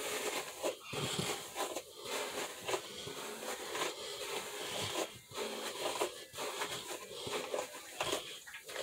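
Hairbrush strokes through hair: a run of rough rustling swishes, broken by short pauses about once a second.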